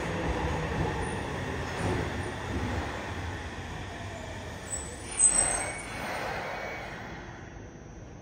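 Yokohama Municipal Subway Blue Line train with a Mitsubishi IGBT-VVVF inverter braking into the station: the inverter whine falls in pitch as it slows and the running noise fades. About five seconds in there is a short, loud hiss from the air brakes, and then the train settles nearly to a stop.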